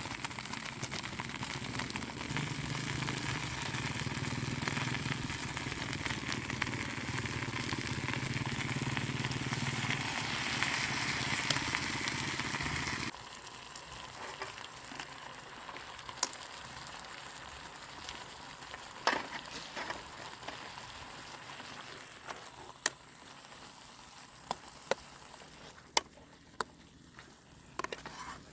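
A steady hiss with a low hum under it, cutting off abruptly about thirteen seconds in. After that the background is quieter, with a scattering of sharp clicks.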